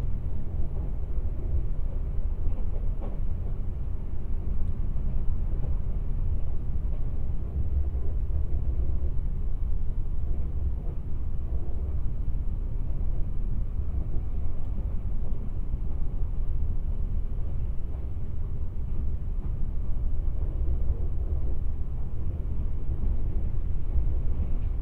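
Kintetsu 26000 series Sakura Liner electric train heard from inside the passenger car while running: a steady low rumble of the wheels on the track.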